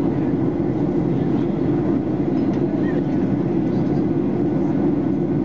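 Steady in-flight cabin noise of a Boeing 737-800: the low, even hum of its CFM56-7 turbofan engines and the rush of air past the fuselage, heard inside the cabin at a window seat over the wing.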